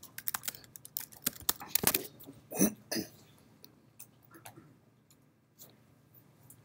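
Typing on a computer keyboard: a quick run of key clicks over the first two seconds, two louder knocks a little before halfway, then a few scattered key taps.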